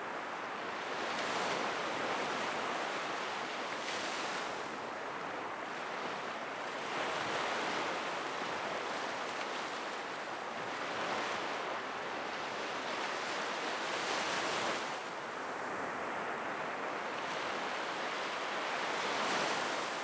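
Sea waves breaking on a beach: a continuous wash of surf that swells and eases every two to four seconds.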